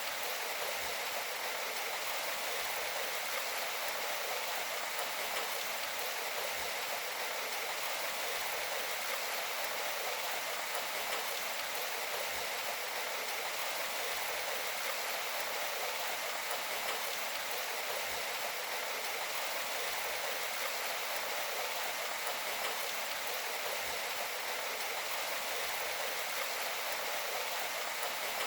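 Steady rain: an even, unbroken hiss of falling water with little low rumble.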